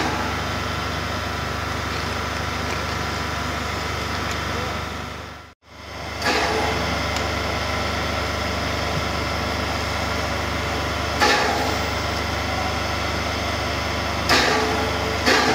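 Hv3 steam locomotive standing with a steady hiss and hum of steam and machinery, broken by a few short louder bursts. The sound cuts out for a moment about five and a half seconds in.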